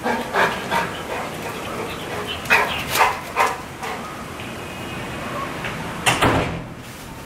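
A dog barking, several short barks in three groups.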